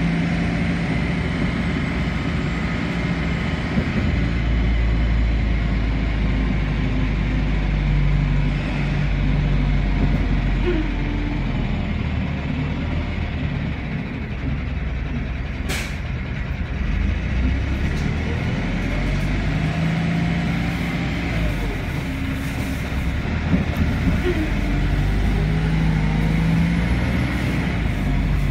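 Vehicle engine running with a steady low rumble, its pitch shifting now and then, and a single sharp click about sixteen seconds in.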